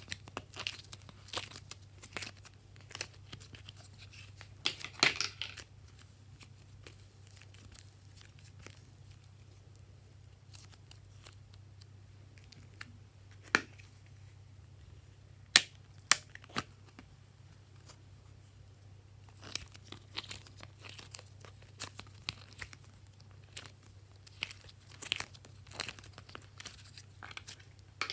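Hands working soft modeling clay out of a plastic palette: scattered sticky crackles and crinkles as the clay is pulled and pressed, with a few sharp clicks of the plastic container near the middle and quiet stretches in between. A faint steady low hum sits underneath.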